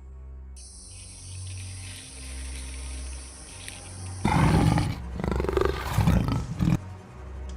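Tiger roaring and snarling in about four loud bursts over a couple of seconds, starting a little past the middle, over a low droning music bed.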